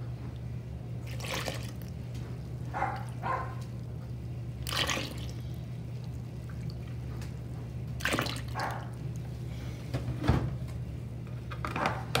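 Cold milk poured from a plastic jug into a stainless steel mixing bowl of instant pudding powder, in several short pours and splashes with pauses between them, over a steady low hum.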